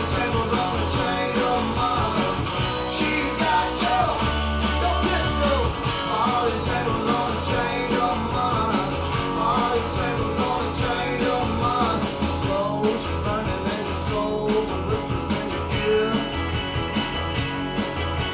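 Rock song with guitar and vocals played back over a hi-fi system through Sonab B32 loudspeakers and an MK SB 1250 subwoofer, heard in the listening room.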